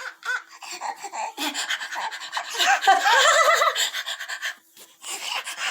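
Baby laughing and panting in quick breathy bursts, with squealing high-pitched voice sounds that are loudest in the middle.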